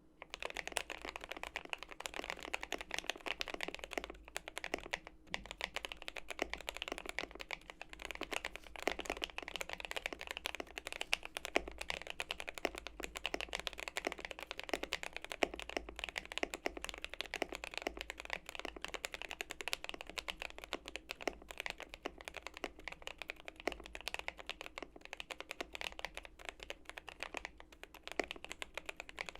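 Steady, fast typing on a GMMK Pro mechanical keyboard with filmed and lubed JWK Durock HaluHalo linear switches on a polycarbonate plate: a dense run of smooth, clacky keystrokes, with a brief pause about five seconds in.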